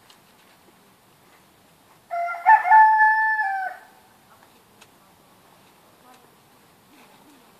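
A rooster crows once: a loud call of about a second and a half that steps up in pitch, holds, then drops at the end.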